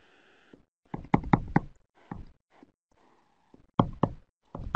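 Writing on a board: a series of short, sharp taps and clicks from the pen striking the surface, in clusters about a second in and again near the end.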